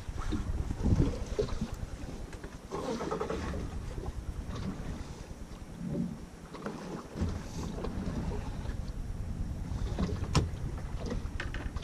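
Wind buffeting the microphone and small waves slapping against the hull of a fiberglass skiff, uneven and gusty, with one sharp knock near the end.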